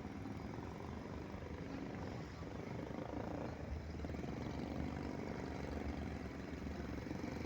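Wooden boat's engine running steadily: a continuous low drone with a fast, even pulsing.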